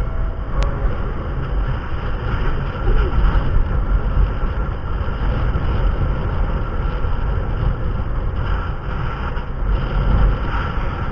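Steady low rumble of a moving vehicle, with wind noise.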